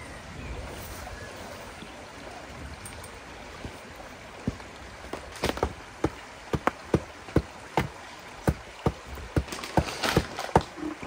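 Creek water running steadily. From about four seconds in, a series of sharp knocks comes at irregular intervals, closer together near the end.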